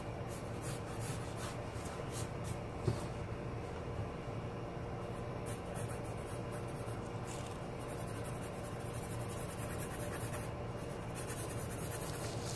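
Graphite pencil scratching and rubbing across sketch paper in repeated drawing and shading strokes, over a steady low hum. A single light knock comes about three seconds in.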